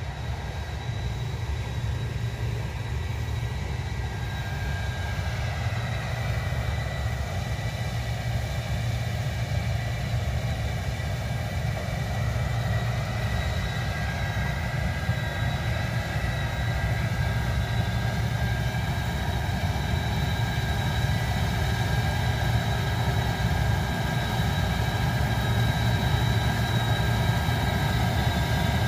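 Case 2555 cotton picker running, a steady heavy engine drone with several steady high whining tones over it, growing slowly louder.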